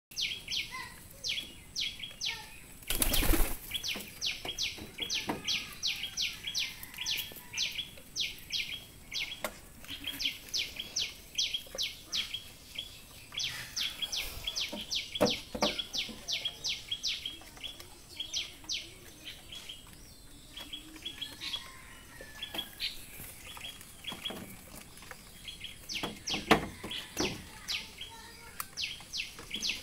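Domestic pigeons' wings flapping in loud bursts, about three seconds in, around the middle and near the end, over runs of quick high-pitched ticks, about five or six a second.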